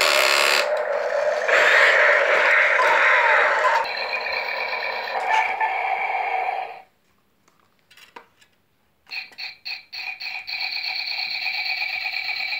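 Electronic sound effects from battery-powered toys played through a small speaker: a long, harsh, noisy effect that cuts off about seven seconds in, a pause, then a pulsing electronic tone.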